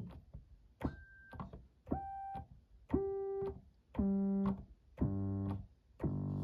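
The same key on an Arturia MiniLab MkII MIDI keyboard played through a software instrument, six short notes about a second apart, each an octave lower than the last as the octave-down button is pressed. A light click of the keys and buttons comes just before each note.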